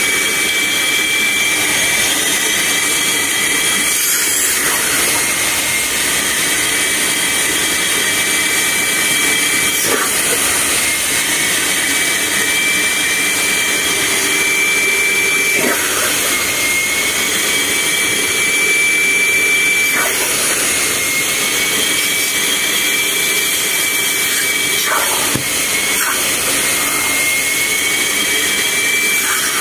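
Wet-and-dry vacuum spray-extraction machine running steadily at full suction through a hose and flat upholstery nozzle dragged across a flood-soaked fabric car seat, pulling out water and dirt. A high whistle in the airflow dips and returns every four to five seconds as the nozzle moves from pass to pass.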